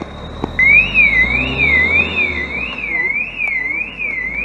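Electronic warning siren on a rally zero (course) car, wailing up and down about twice a second as the car opens the stage. It breaks off briefly at the start and comes back on about half a second in.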